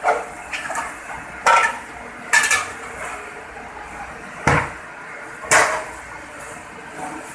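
Ceramic bowls and dishes clattering as they are set down and racked at a dishwashing station, about five sharp clinks and knocks over a steady hum of kitchen machinery.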